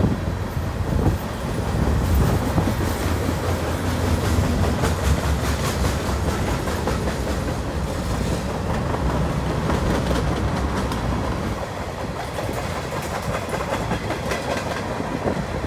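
CN freight train's covered hopper cars and boxcars rolling past, steel wheels clicking over the rail joints over a steady low rumble. The sound eases slightly near the end as the last cars go by.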